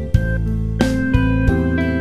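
Instrumental backing track in A minor, guitar over a bass line, with fresh chords struck about every two-thirds of a second.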